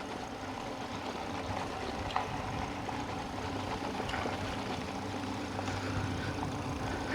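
Eahora Urban e-bike riding along: a steady low hum with an even rush of tyre and road noise and a few faint ticks.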